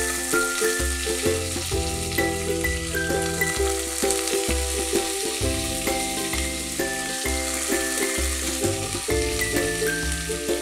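Sliced onions sizzling in hot oil and ghee with whole spices in an open pressure cooker, under background music with a stepping bass line and a high melody.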